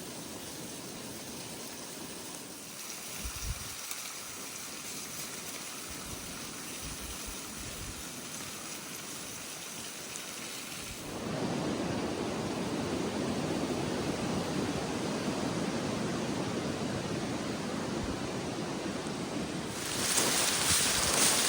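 Steady rush of a small waterfall. About eleven seconds in it jumps to a louder, fuller rush, and near the end a louder hiss sets in.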